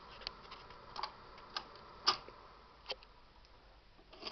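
Irregular light clicks and knocks from handling a Magnavox portable record player's changer and tonearm between records, the loudest about two seconds in.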